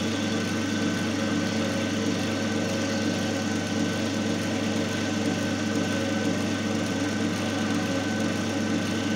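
Single-phase capacitor-run induction motor running steadily under load at about 1,444 rpm, coupled to its loading machine: a constant electrical hum with a faint high whine.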